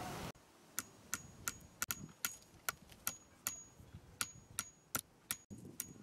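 A hammer tapping a nail into a wooden pole, in light, quick, even taps about three a second. Each tap carries a brief high metallic ring.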